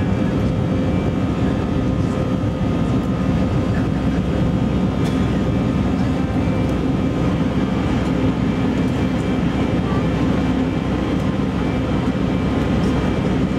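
Steady cabin noise inside an Airbus A320-family airliner during the climb after takeoff: a constant rush of engine and airflow noise with a steady hum from the jet engines.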